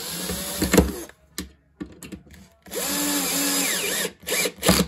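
Cordless drill-driver on its lowest speed and screw setting, driving screws through a metal shelf bracket into compacted-sawdust board. The motor whirs in two short runs with a pause between, the first rising in pitch as it starts, then a few short bursts near the end.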